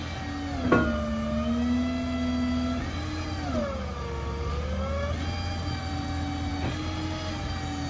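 Crane hydraulic pump driven by the truck's engine, whining steadily. A sharp clunk comes about a second in, after which the whine drops in pitch. Its pitch sags again in the middle and then recovers, as load comes on and eases off the hydraulics.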